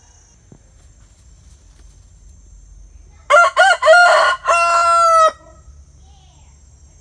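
Rooster crowing once, about three seconds in: a cock-a-doodle-doo of a few short rising notes and a long held final note, about two seconds in all.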